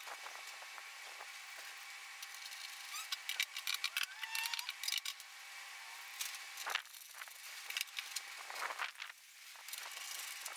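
Faint clicking and rattling of small parts and tools being handled, in a quick cluster a few seconds in and a couple of single knocks later, over a steady high hiss.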